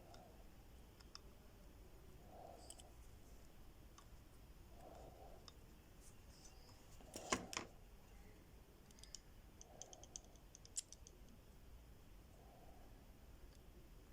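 Faint, sparse clicks and taps from small repair tools working on a phone's circuit board. There is a louder pair of clicks about halfway through, followed shortly by a quick run of light ticks.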